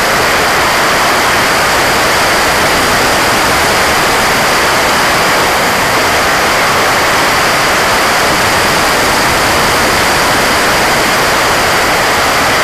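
Steady, loud rush of airflow and propeller noise, picked up by a camera mounted on a fixed-wing drone in flight, with a faint high whine above the hiss.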